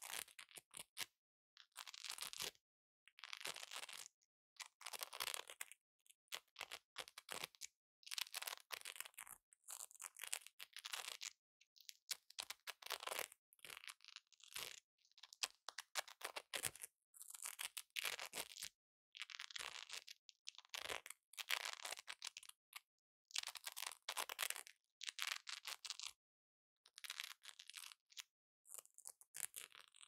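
Hook-and-loop (Velcro) fastener being ripped apart again and again close to the microphone: crackly tearing rips of about a second each, with short silent gaps between them.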